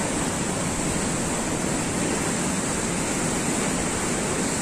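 Whitewater rushing steadily through an artificial slalom canoe channel, a constant noise of churning rapids.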